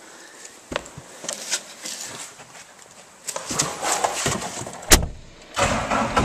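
Clicks and knocks from handling a skid steer's cab door, with one loud bang about five seconds in as it shuts.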